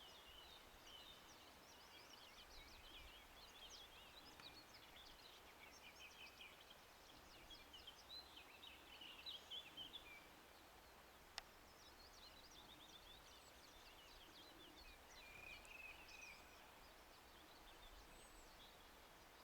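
Faint chorus of several songbirds chirping and trilling at once, busiest a little before halfway, with a single sharp click about eleven seconds in.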